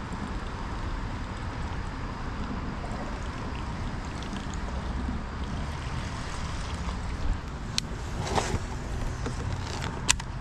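Steady low hum and rumble from overhead high-voltage power lines, under faint water sounds from a kayak on a creek. A few sharp clicks come in the last few seconds.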